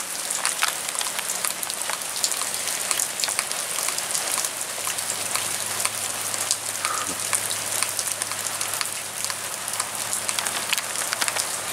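Steady rain falling, heard from under a porch roof, with many single drops ticking close by.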